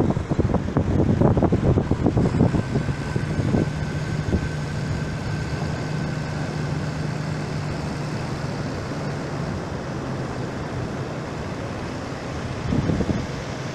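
Tractor's diesel engine running with a steady hum as it drives across the sand, over a constant hiss of surf. Wind buffets the microphone hard in the first few seconds and again near the end.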